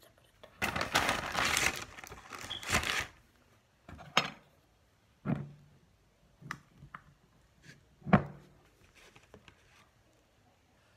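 A bag crinkling and rustling for about two seconds, then four sharp knocks a second or so apart, as things are set down on a kitchen counter.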